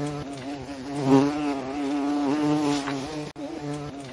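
Bumblebee buzzing, a steady drone that wavers slightly in pitch and breaks off briefly about three seconds in.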